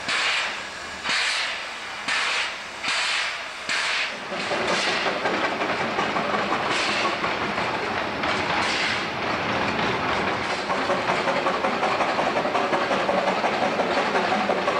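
Narrow-gauge steam locomotive working slowly: about five loud hissing chuffs of steam about a second apart, then a steady clatter and rumble of the engine and its wagons rolling over the rails, with fainter chuffs now and then.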